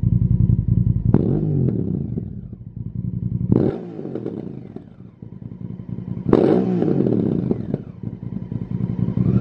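Honda CRF1000 Africa Twin's 998 cc parallel-twin engine running through a Lextek OP1 aftermarket silencer, revved while stationary. It gives three sharp throttle blips, the revs falling back toward idle after each, then the revs climb again near the end.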